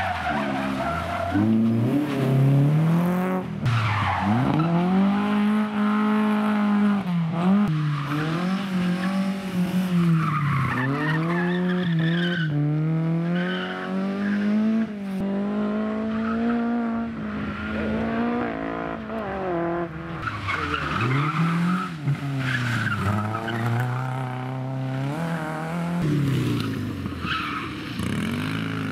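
Rally cars' engines revving hard and dropping off again and again as they are thrown around a tight course, with tyres squealing and skidding at times.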